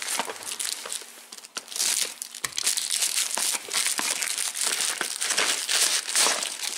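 Parcel packaging crinkling and rustling in irregular bursts as it is handled and unwrapped by hand.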